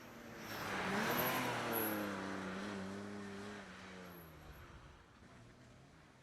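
A car accelerating hard past on the hillclimb course, its engine loudest about a second in, then fading away as it pulls off.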